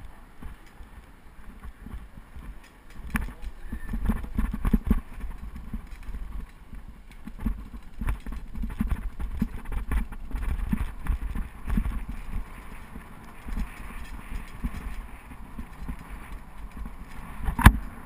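Bicycle jolting and rattling over an uneven road surface: irregular low knocks and rumbles, busier from about three seconds in, with one sharp knock near the end.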